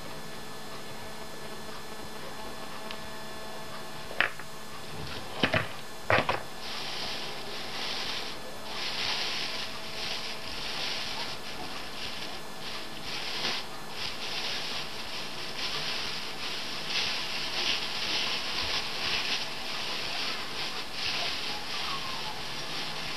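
Thin plastic bags crinkling and rustling in irregular bursts as they are gathered and twisted closed by hand. This follows three sharp knocks of a plastic spatula against a plastic bowl about four to six seconds in.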